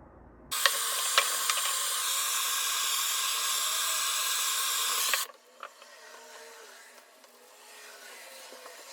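A loud steady hiss starts about half a second in and cuts off suddenly a little past the middle, with a few sharp clicks over it.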